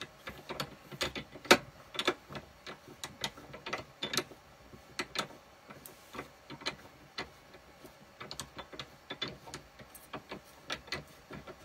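Steel rifle action being spun by hand onto a barrel's threads in a barrel vise: a run of light, irregular metallic clicks and ticks, with the loudest about a second and a half in and fewer through the middle.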